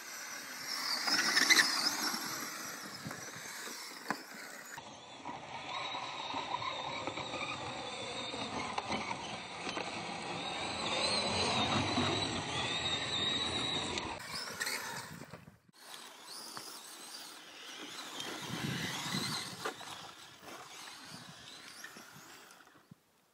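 Brushless electric RC rally car driven hard on dirt: the motor's whine rises and falls in pitch as it accelerates and slides, over the rushing scrabble of tyres throwing dirt. The sound comes in several passes with abrupt breaks between them.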